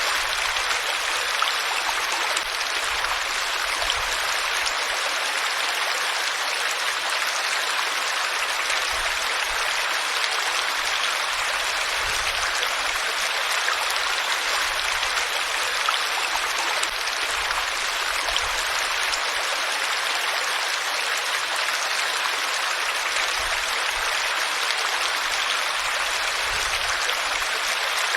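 Flowing water of a stream, a steady, even rushing hiss.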